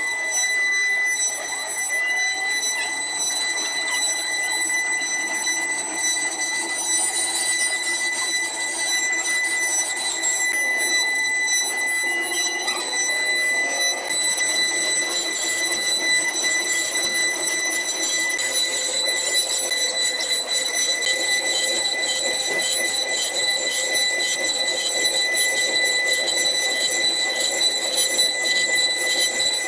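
Multi-spindle CNC wood router running, its spindles giving a steady high-pitched whine while the bits carve a solid-wood panel, with a rough cutting noise underneath.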